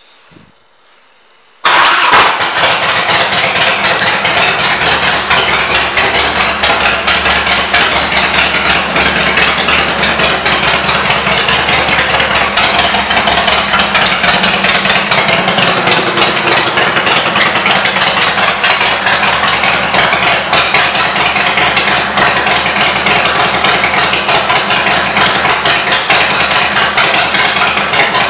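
Harley-Davidson Softail Deuce's Twin Cam 88B V-twin starts about two seconds in, then runs steadily at idle with a fast, even pulse through aftermarket Bub exhaust pipes.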